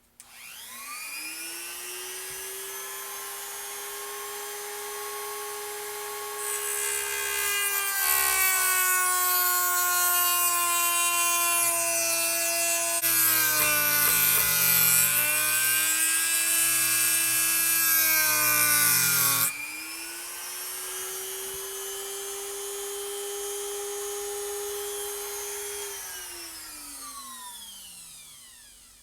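Dremel rotary tool spinning up to a high steady whine, then grinding against a hardened steel bearing outer race for about a dozen seconds, its pitch dropping under the load, before running free again and winding down near the end. The hardened race is very hard and takes barely a mark.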